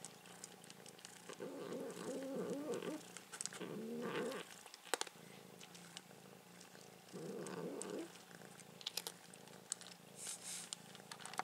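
A domestic cat growling low over a shared food bowl in three drawn-out, wavering stretches, guarding its food. Short crunches of dry cat food being eaten come between them.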